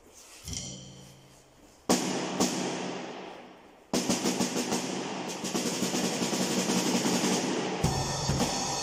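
PDP drum kit being played with sticks. First comes a single low drum hit, then a sharp crash that rings out for about two seconds. About four seconds in, a fast, continuous run of strokes with cymbal wash starts, and near the end the bass drum comes in under it.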